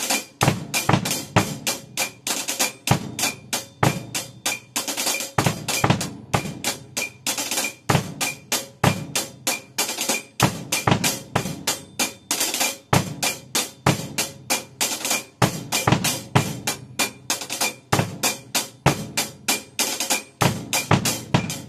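Acoustic drum kit played in a steady, repeating beat: even hi-hat strokes with snare backbeats and bass drum hits.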